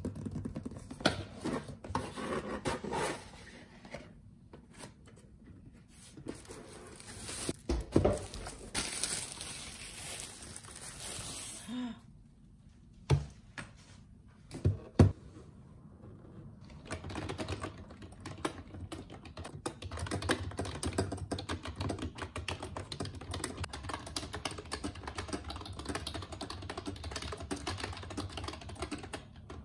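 Packaging and box handling noises with a few sharp knocks, then, from a little past halfway, rapid steady typing on a Yunzii Actto B303 retro typewriter-style wireless keyboard with round keycaps.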